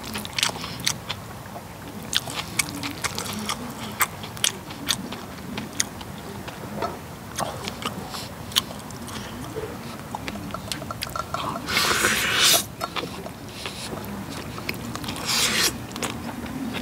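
Close-miked chewing and wet mouth sounds of bibimbap with egg and seasoned vegetables being eaten, with frequent sharp clicks of a wooden spoon against the cast-iron cauldron lid and of the mouth. About twelve seconds in, and again a few seconds later, there is a louder rushing mouth noise lasting about a second.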